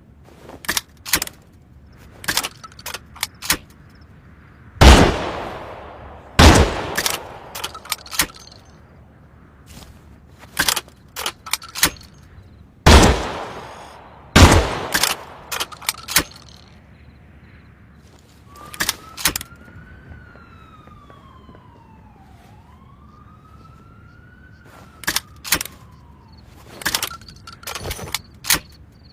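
Double-barrel shotgun fired twice, two shots about a second and a half apart each time, with many sharp metallic clicks and clacks of the gun's action between and around the shots. In the second half a faint tone rises and falls in pitch, like a siren.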